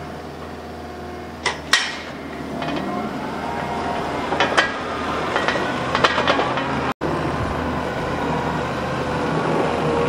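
John Deere compact track loader running and moving with a load of small square hay bales on its bale grapple: engine and hydraulic whine that rises and grows louder, with sharp metal clanks from the grapple and tracks, two close together about a second and a half in and more later.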